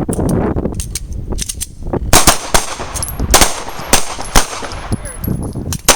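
Pistols fired by a line of shooters on a fire command: about ten sharp shots in an irregular, staggered string, the loudest coming from about two seconds in.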